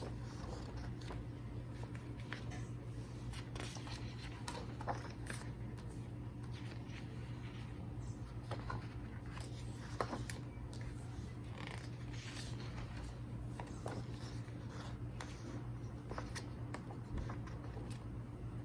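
Pages of a thick photobook being turned and handled: scattered soft paper rustles and light clicks over a steady low hum.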